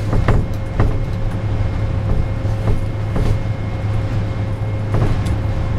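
Sandstorm wind buffeting a plywood guard tower: a steady, loud rumble with a few short knocks and rattles from the shaking structure, over a faint steady hum.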